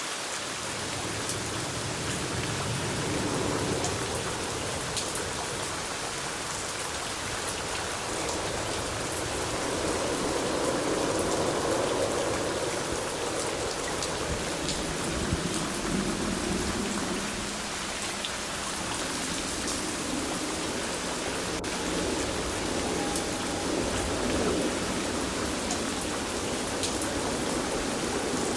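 Steady rain falling, many separate drop hits ticking through a constant hiss, with a low rumble underneath that swells and eases.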